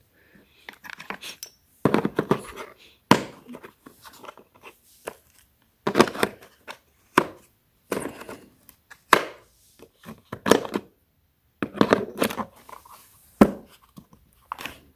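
Steel adapter discs and parts of a brake caliper piston wind-back tool kit clattering and knocking as they are handled and pressed into the slots of the hard plastic case, in irregular sharp knocks about a second apart.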